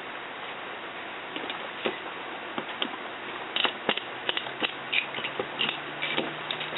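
A spatula prying and scraping a 3D-printed plastic part free of its support material: irregular small clicks and cracks that come more often about halfway through, over a steady background hiss.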